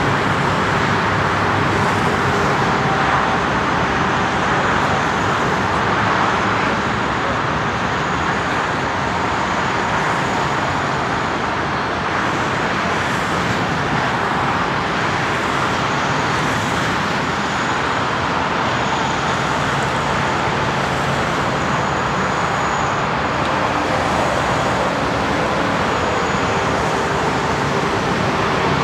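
Steady airfield noise: a continuous, even rush with a faint high-pitched whine drifting in and out.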